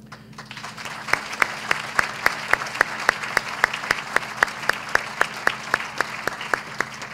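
Audience applause. Over it, one person's loud claps close to the microphone fall evenly at three to four a second, from about a second in until shortly before the end.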